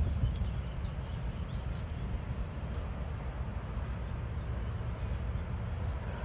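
Steady low rumble of outdoor background noise, with a cluster of faint high ticks about three seconds in.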